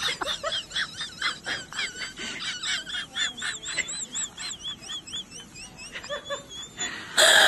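A cat chewing a green sprig, with quick crunching clicks and a run of high, evenly spaced chirping squeaks, about two to three a second. It ends in a short loud rush of noise.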